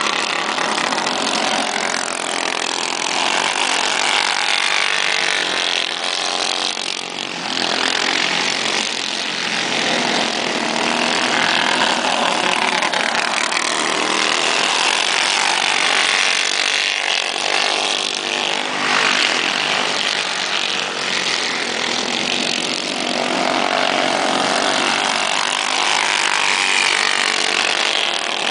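Several racing go-karts' small engines running hard as the karts lap the track, a continuous buzzing note that rises and falls in pitch as they accelerate and pass.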